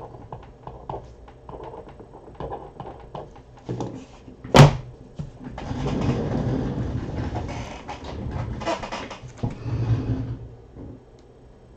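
Hands handling trading cards and packaging on a table: small scattered clicks, one sharp knock about four and a half seconds in, then several seconds of rustling.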